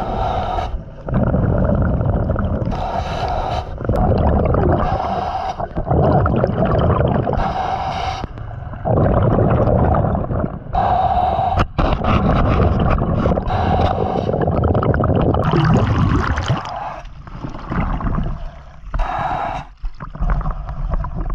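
Scuba diver breathing through a regulator underwater: a hissing inhale through the demand valve alternates with a bubbling, rumbling exhale, about every two to three seconds. The diver is short of breath in a loose, leaking mask. The pattern breaks up near the end as he surfaces.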